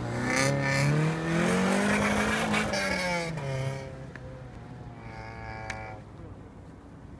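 Honda Civic Shuttle's swapped B20 VTEC four-cylinder engine revving hard as the car launches from the start, its pitch climbing for a couple of seconds, dropping at a gear change about three seconds in, then fading as the car pulls away, with one more fainter rev-up near the end.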